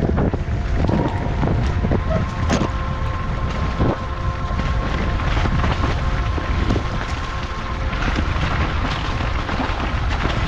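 Wind buffeting the microphone over the rattle of a mountain bike on a rough trail, with sharp knocks scattered throughout.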